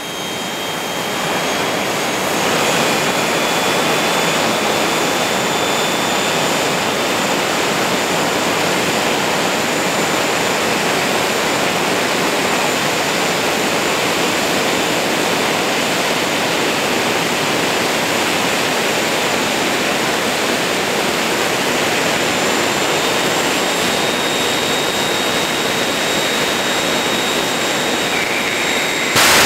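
Jet dragster's turbine engine running at the start line: a loud, steady rushing noise with a thin high whine. It builds over the first couple of seconds and then holds. Right at the end it suddenly jumps louder as the car launches.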